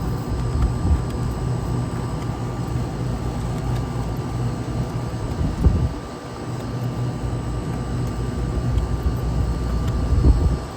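Steady low mechanical rumble with a constant hum, briefly quieter about six seconds in.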